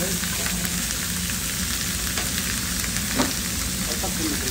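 Steak strips and masa picadas sizzling on a flat-top griddle, with small spatter pops over a steady low hum. A single sharp click comes about three seconds in.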